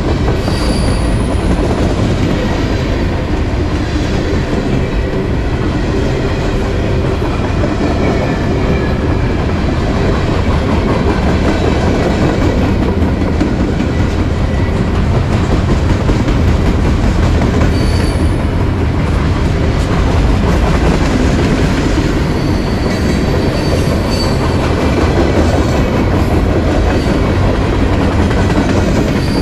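Empty freight flatcars rolling past close by: a steady, loud rumble of steel wheels on rail with clickety-clack over the joints. A few brief high wheel squeals come through, about a second in, around the middle and near the end.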